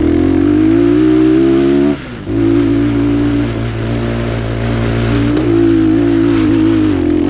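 Dirt bike engine held at high, steady revs while climbing a steep dirt hill, with a brief dip in level about two seconds in before it pulls hard again.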